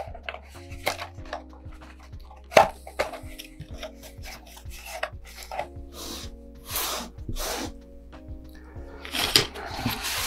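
Rubbing strokes by hand at a workbench, with scattered light clicks of handled tools and parts, over a soft background music bed; the rubbing grows more frequent near the end.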